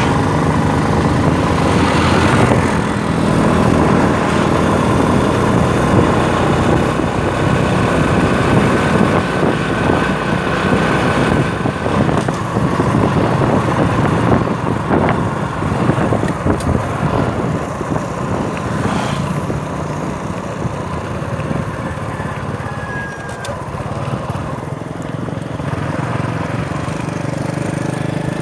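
A small vehicle engine running steadily under a constant rushing noise.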